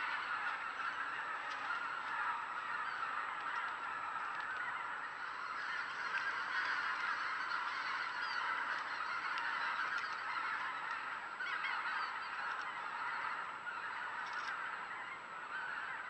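A large flock of geese honking: a dense, continuous chorus of many birds calling at once, from waterfowl feeding in great numbers.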